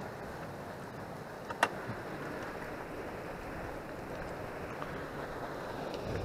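Steady wind rush on the microphone beside the river, with one sharp click about a second and a half in.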